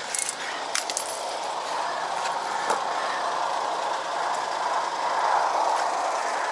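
A few light metallic clinks of snow-chain links being handled in the first three seconds, over a steady vehicle noise that slowly grows louder.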